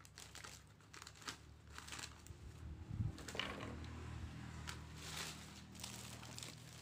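Plastic snack packet crinkling and crackling in short, irregular bursts as it is handled, with the loudest crackle about three seconds in.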